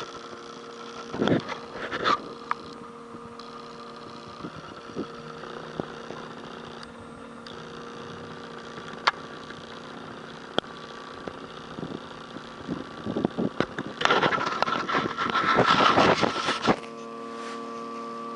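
A steady machine hum made of several even tones, with scattered clicks and knocks over it. A louder stretch of clattering and rustling comes near the end, and the hum changes pitch just after it.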